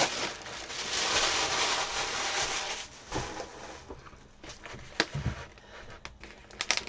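Tissue paper rustling and crinkling as it is pulled off a paper-wrapped package, for about three seconds. Then lighter handling: scattered clicks and knocks on a hard tabletop, with a sharp click about five seconds in.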